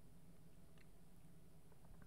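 Near silence: a low steady room hum with a few faint small clicks.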